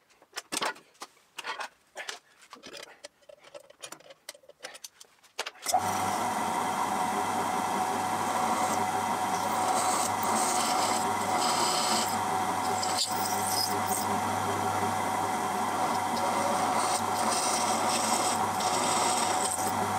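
A few light clicks and knocks of handling. Then, about six seconds in, a drill press starts up and runs steadily while drilling rivet holes through a copper boiler barrel and butt strip, and it stops near the end.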